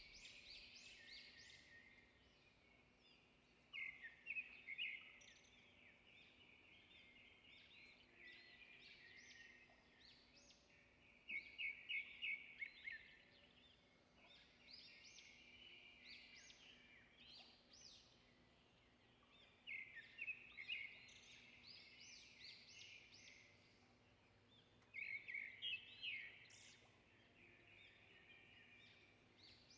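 Faint bird calls: quick, chattering phrases that run on throughout, with a louder burst about every seven or eight seconds, over a faint steady hum.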